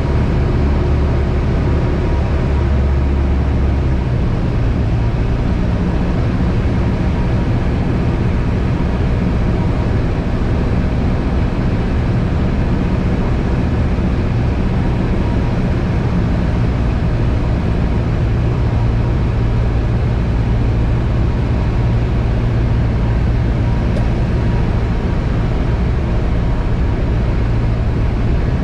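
Piper Cherokee 140's four-cylinder Lycoming engine and propeller droning steadily in flight, heard from inside the cabin.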